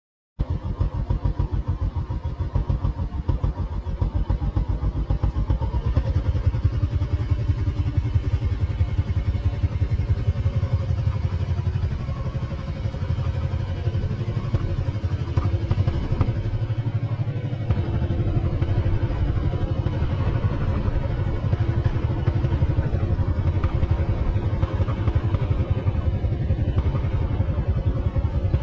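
Motorcycle engine running steadily, with a fast, even exhaust beat.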